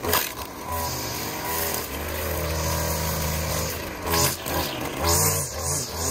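Gas string trimmer engine running, revving up and down as the line cuts grass, with several brief louder surges.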